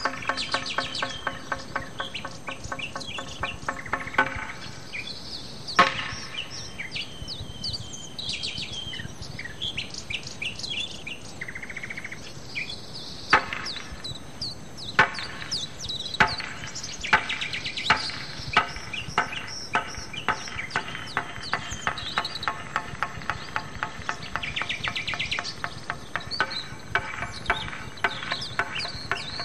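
Birds chirping and singing, many short calls one after another, with a low, rapidly pulsed call for the first four seconds and two brief insect-like trills partway through.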